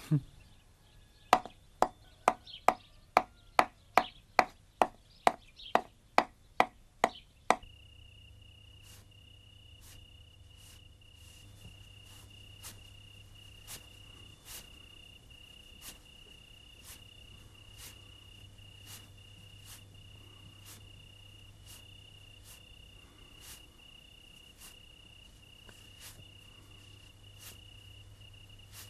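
A quick run of about fourteen sharp chopping knocks, roughly two a second, which stops about seven and a half seconds in. Then crickets chirp steadily, with faint ticks about once a second.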